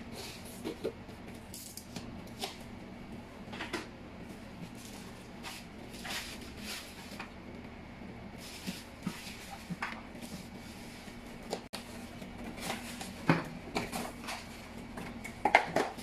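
Cardboard box flaps and plastic wrapping being handled while vacuum cleaner parts are unpacked: irregular knocks, scrapes and crinkles, the loudest cluster near the end.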